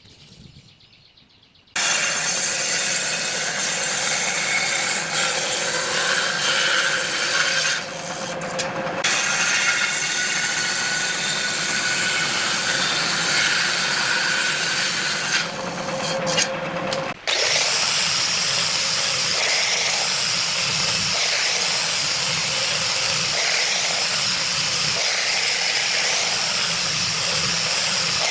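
Power tool working wood, starting suddenly about two seconds in and running steadily with a couple of brief dips; after a short break past the middle it carries on with a hissier, higher sound.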